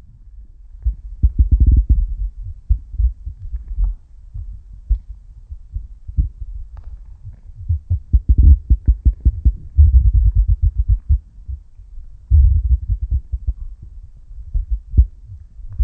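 Muffled underwater sound picked up by a submerged camera: a low rumble with irregular clusters of dull thuds from water moving against the camera as the swimmer moves.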